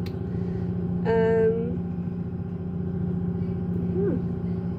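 Steady low drone of a ship's machinery, the constant hum of the vessel's engine or generator heard from inside a cabin. A short held hum of a woman's voice comes about a second in, and a brief falling vocal sound near the end.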